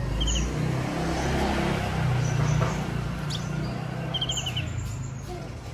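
Caged male sunbird giving short chirps: a quick run of four or five high notes just after the start and again about four seconds in, with a few single higher notes, over a steady low rumble.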